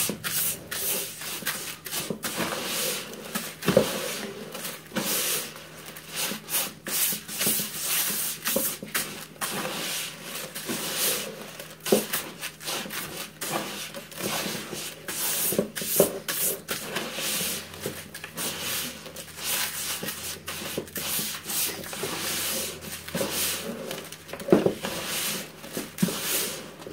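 A gloved hand stirring and squishing wet rice pack bait (instant rice soaked with ketchup, sugar and salt) in a plastic bucket, the grains scraping against the bucket's sides and bottom in quick irregular strokes. A few louder bumps come in between.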